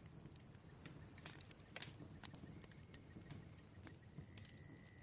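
Wood fire crackling faintly, with scattered sharp pops and snaps at an uneven pace.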